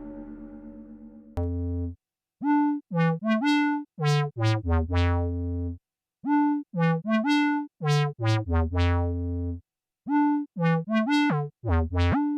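Synthesizer from an Empress Effects ZOIA EuroBuro module playing a repeating sequenced phrase of short plucked notes, each bending quickly up in pitch, with brief silences between phrases. It opens on the fading tail of a ringing, gong-like tone that stops suddenly about a second and a half in.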